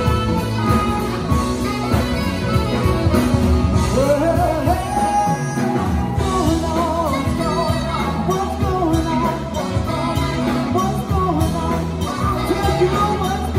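Live band playing an upbeat number: saxophones, electric guitar and piano over a steady bass and drum groove. A lead melody line slides up and weaves above the band from about four seconds in.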